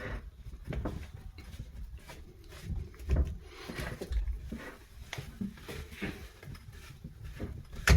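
Drain pipe being refitted by hand under a sink: scattered knocks, clicks and scrapes of the pipe and its slip nut, with a sharper knock near the end.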